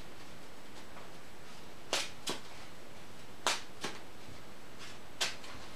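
Trading cards being handled at a table: five short sharp snaps, in two quick pairs and then a single one.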